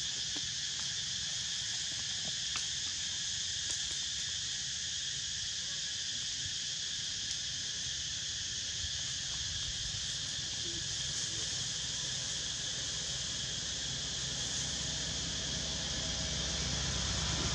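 Steady chorus of insects, a constant high buzzing that never breaks, over a low rumble.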